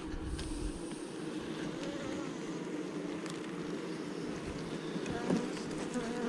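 Honey bees buzzing in a steady drone around an open hive, with a couple of faint clicks.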